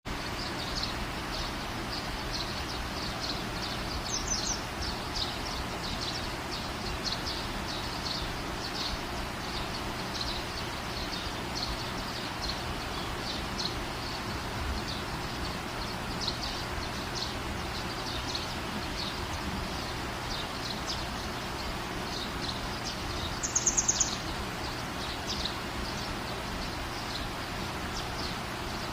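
Steady rain falling, with a bird chirping over it again and again, about once or twice a second. Near the end a louder, quick run of about six high calls stands out.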